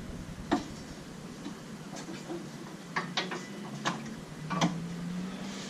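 A handful of sharp metallic clicks and taps at uneven intervals over a faint low hum, from work on a Jeep Wrangler JK's suspension while the axle is lowered to free the coil springs.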